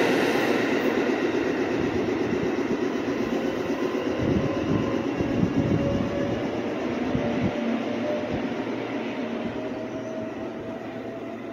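Meitetsu electric train pulling away. Its running noise fades steadily while a motor whine slowly rises in pitch, the sign of the train accelerating, with a few sharp wheel clicks midway.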